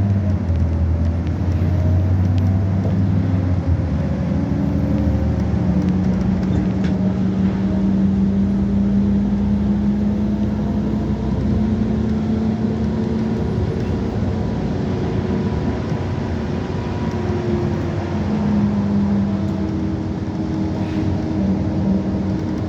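A motor vehicle running steadily: a low engine drone whose pitch drifts slowly up and down over a constant noisy rush.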